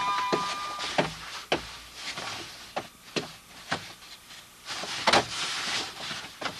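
Wooden door and a string of irregular knocks and thuds, the loudest about five seconds in.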